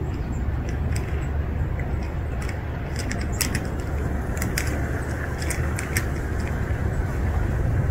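Two street cats crunching dry kibble from a thin plastic tray, with scattered small crunches and clicks over a steady low rumble.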